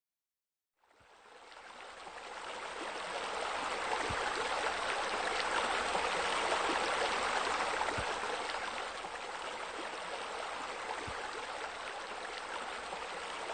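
Steady rush of running, splashing water, fading in about a second in and building over the next couple of seconds.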